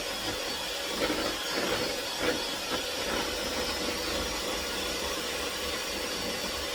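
A steady even hiss, with a couple of faint light knocks about one and two seconds in.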